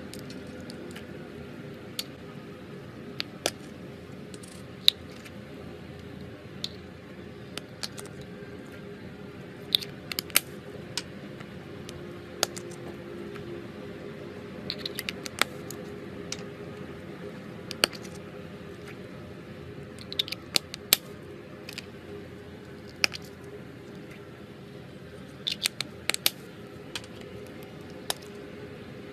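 Irregular sharp clicks and soft taps from small plastic cups being squeezed and jelly-like slime cubes being set and pressed into a glass bowl, some in quick little clusters, over a faint steady hum.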